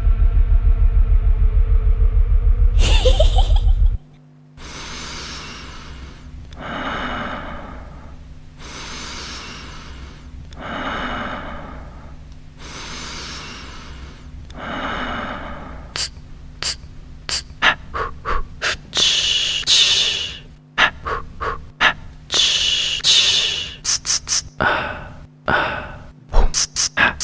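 Horror-style performance soundtrack: a loud deep rumble with a rising sweep for the first four seconds, then cuts to recorded breathing over a low steady hum. The breaths come slowly, about one every two seconds, and quicken into fast, gasping panting about halfway through.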